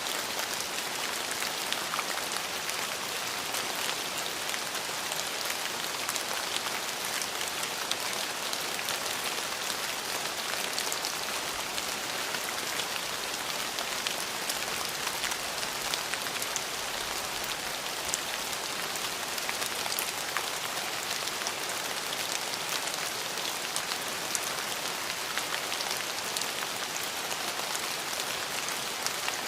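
Steady rain falling, a dense even hiss of drops with many small distinct drop ticks on a hard surface.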